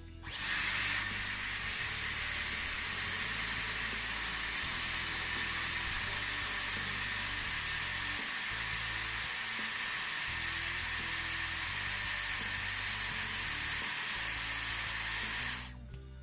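Dyson Airwrap switched on just after the start, blowing a steady rush of air through its curling barrel with a faint high whine, then switched off about a second before the end.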